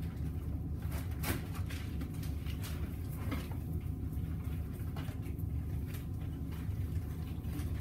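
Steady low hum with scattered light knocks and scrapes of a knife working on a cutting board as a bone-in ham is cut into its muscles.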